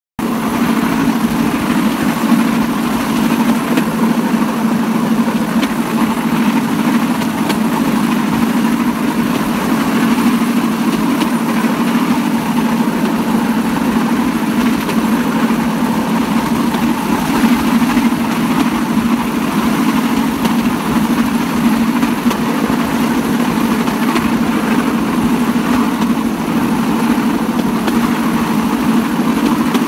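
Cambodian bamboo train (norry) under way on the rails, its small petrol engine running with a steady, unbroken drone along with the rattle of the platform and wheels.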